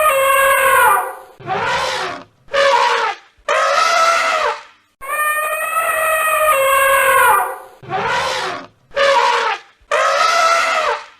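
An animal calling loudly: one long pitched call, then three shorter ones, and the same sequence repeats twice.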